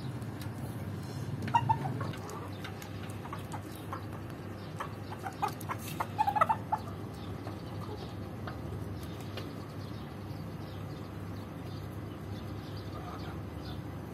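Chickens clucking: a few short, sharp calls about one and a half seconds in, then a louder run of clucks around five to six and a half seconds in, over a steady low hum.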